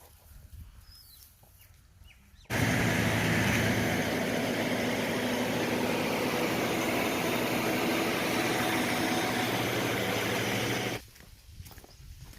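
A motor vehicle's engine running steadily with a low hum. It starts abruptly about two and a half seconds in and cuts off just as suddenly near the end, after faint outdoor sounds.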